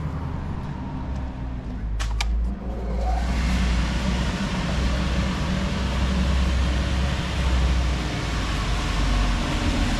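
A couple of sharp clicks about two seconds in, then the electric air blower of an inflatable bouncy castle starts about three seconds in and runs on with a steady rushing noise.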